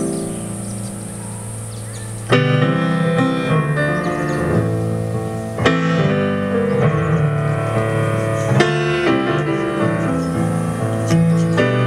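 Piano in a live jazz-leaning band playing full chords, a fresh chord struck about every three seconds, each ringing on until the next.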